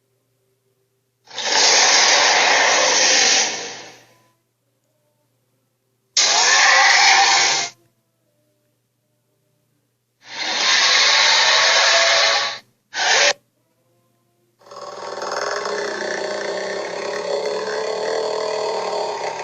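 Cartoon dinosaur screech sound effects: three harsh screeches of about one and a half to three seconds each, a short fourth one, then a longer continuous one starting about fifteen seconds in, with silence between them.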